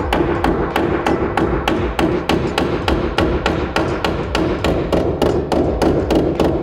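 Panel beater's pick hammer striking the steel pinch weld along the bottom of a Holden Torana's sill, about four blows a second in a steady rhythm, each with a short metallic ring. The blows are straightening a dented, wavy pinch weld.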